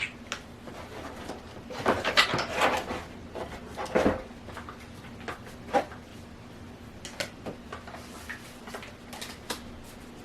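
Hands handling the contents and packaging of an airsoft gun box: scattered clicks and knocks, a burst of rustling and clattering about two seconds in, and a heavier knock about four seconds in.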